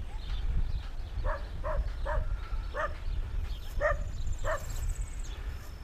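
A dog barking: six short barks spread over about three seconds. A thin high trill runs alongside the later barks.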